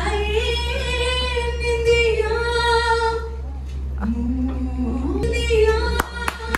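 A song with a woman singing long, held notes. Sharp hand claps start near the end.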